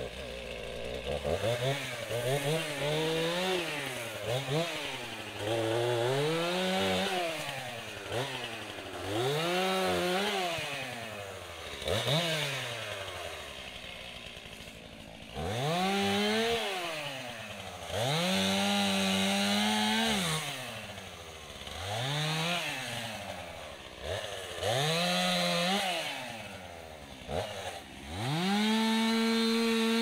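Chainsaw revving up to full speed and dropping back to idle again and again, about ten times, while cutting up a fallen tree; near the end it holds at full speed for a couple of seconds.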